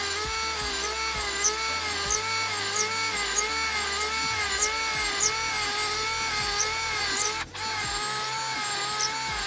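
Bauer 20V cordless drill running at high speed while drilling holes, its motor whine wavering in pitch about twice a second as the load changes. It cuts out briefly about seven and a half seconds in, then starts again.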